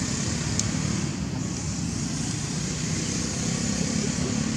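Steady outdoor background rumble with a hiss above it, at an even level throughout, and one faint click about half a second in.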